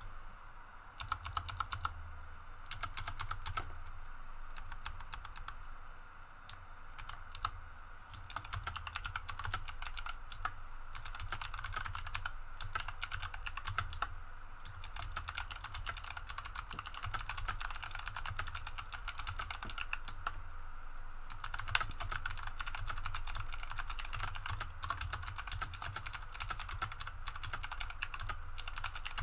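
Mechanical keyboard with Kailh Box Navy switches being typed on: a fast, continuous run of sharp clicks from the switches' click bars, with short lulls about six and twenty seconds in.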